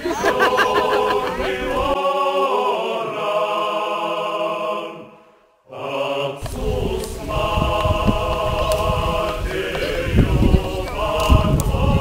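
A choir singing long, chant-like held chords. The singing fades out about five seconds in and comes back a second later, with a low rumbling noise underneath.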